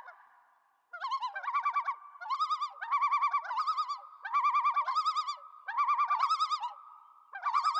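A bird calling: a run of quavering, wavering call notes repeated in short bouts about once a second.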